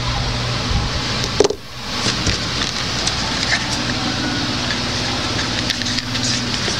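Steady hiss with a low hum underneath, dropping out briefly about a second and a half in, with scattered light clicks.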